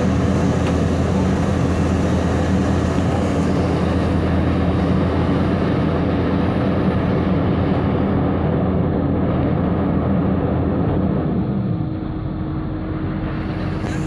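Heavy diesel engines of asphalt-paving machinery, a paver and road rollers, running with a steady drone. A little before the end it drops slightly in level and a steady higher hum is left.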